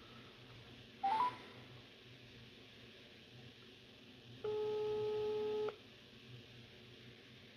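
Mobile phone on speakerphone placing a call. A short rising three-note beep sounds about a second in. A few seconds later comes one steady low ringing tone lasting a little over a second: the ringback tone, the line ringing at the other end.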